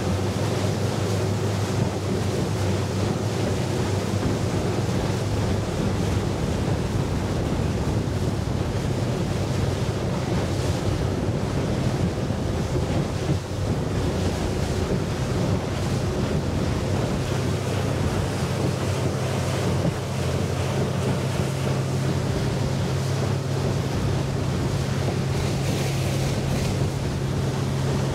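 Yamaha 250 SHO V6 four-stroke outboard driving a bay boat at cruising speed, about 25 mph, with the hull running through light chop and wind on the microphone. The steady engine hum rises a little in pitch about halfway through.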